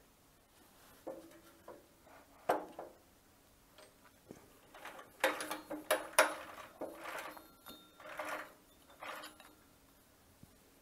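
Irregular metallic clicks, clinks and knocks from the cast-iron top casting and height-adjustment handwheel of a Delta DC-380 planer being worked by hand, a few ringing briefly. They come thickest about halfway through.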